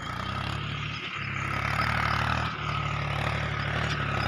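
Mahindra tractor's diesel engine running steadily, a low even rumble that grows a little louder over the first two seconds.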